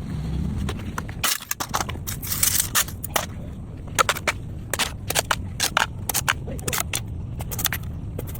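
Irregular sharp knocks and cracks from bamboo being worked by hand, several to a second, over a low steady hum.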